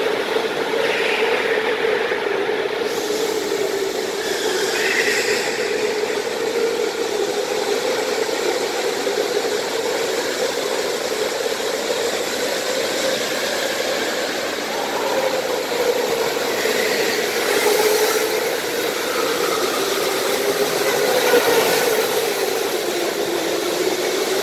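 Go-karts running laps on an indoor track: a steady drone that wavers slowly in pitch, swelling a little as karts pass close by.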